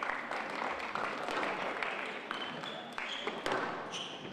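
Squash rally: the ball cracks off rackets and walls several times, and court shoes squeak briefly on the wooden floor, over a steady background hiss of the hall.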